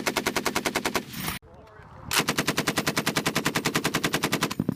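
Machine gun firing two bursts of rapid automatic fire: the first burst stops a little over a second in, and after a short pause a second, longer burst of about two and a half seconds follows, stopping just before the end.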